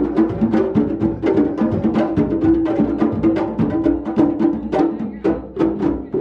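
An ensemble of hand drums, tall skin-headed barrel and goblet drums struck with bare hands, playing a fast, dense rhythm together.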